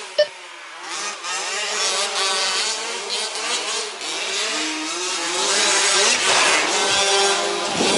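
A pack of 1/5-scale petrol RC trucks with small two-stroke engines revving and buzzing, their pitches rising and falling as they pull away at the race start. A short electronic start beep sounds right at the beginning.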